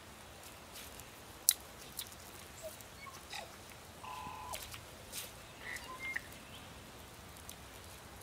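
Faint crackling and snapping of a small twig fire in a dirt pit as sticks are handled and pushed into it, with one sharp snap about a second and a half in. A few short bird chirps sound in the background around the middle.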